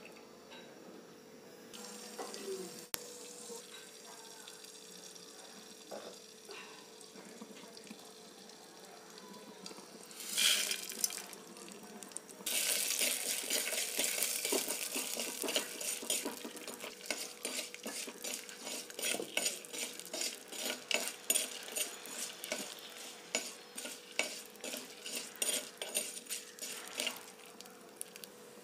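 Split dals and dried red chillies frying in hot oil in a clay pot: a loud sizzle starts suddenly a little before halfway, then a spoon stirring and scraping against the pot in quick repeated strokes.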